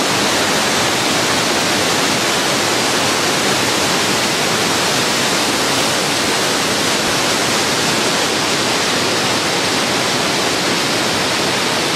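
White-water rapids of a tall waterfall rushing steadily over rocks, a dense even rush of water.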